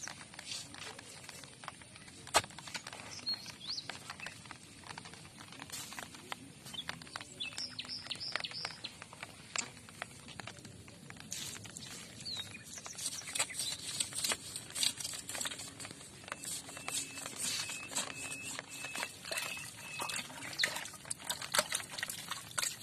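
Scattered clicks, crackles and rustling from close handling, with a few short bird chirps; about three-quarters through comes a run of evenly spaced chirps.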